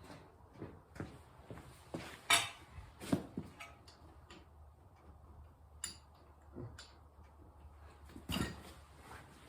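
Metal hand tools clinking and knocking as they are handled during brake work on a car's front disc brake: a handful of separate clinks, the loudest about two seconds in and another near the end.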